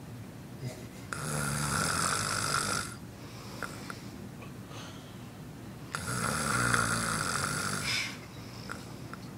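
A man snoring in his sleep: two loud, rasping snores, each about two seconds long and about five seconds apart, with quieter breathing between them.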